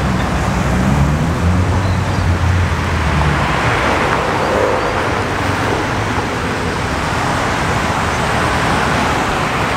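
A car engine running at low revs as the car pulls slowly out into traffic. A low, steady engine note is strongest for the first few seconds, then it gives way to an even wash of passing traffic and tyre noise.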